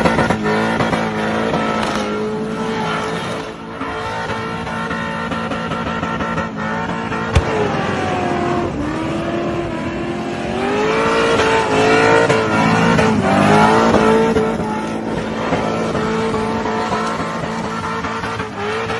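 LS1 V8-powered Holden VN Commodore skidding and spinning donuts, its engine revving up and down hard and its rear tyres squealing continuously. A single sharp crack sounds about seven seconds in.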